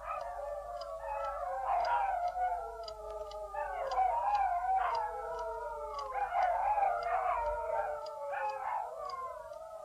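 Several dogs howling together in long, overlapping, wavering calls that swell and fade every second or two.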